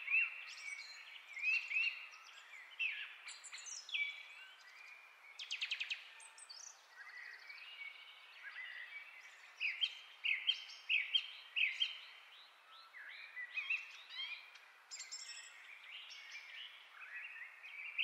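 Songbirds chirping and singing in many short, repeated calls, with a quick rattling trill about six seconds in.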